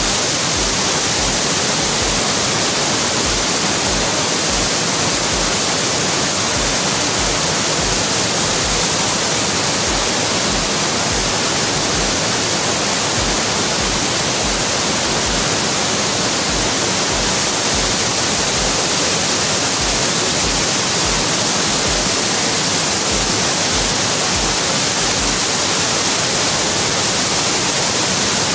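Elephant Falls, a multi-tiered waterfall, rushing steadily: loud, even falling-water noise with no change.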